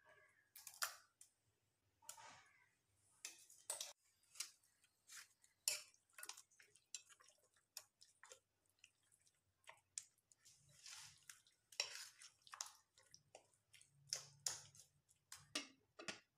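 Raw chicken pieces being mixed with a green paste in a glass bowl, heard as short irregular wet clicks and scrapes. Near the end a lid is set on the bowl.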